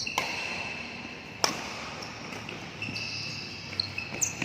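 Two sharp hits about a second and a quarter apart, with thin squeaks between them.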